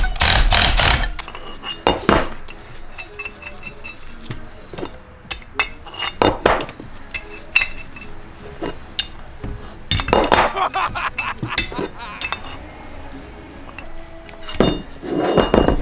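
Irregular metal-on-metal clinks and clanks, a few louder than the rest, as a steel C-frame press and a steel plate are handled and fitted around a sway bar end link to press in a polyurethane bushing.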